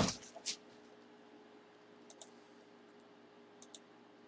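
A sharp thump as the helmet box is handled, a smaller knock about half a second later, then a few faint clicks from the cardboard and packaging being worked open, over a low steady room hum.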